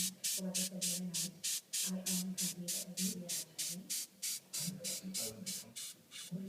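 Australian Christmas beetle (Anoplognathus) buzzing its wings in short stop-start bouts, a low drone that comes and goes. Alongside it runs an even series of hissing pulses, about four a second.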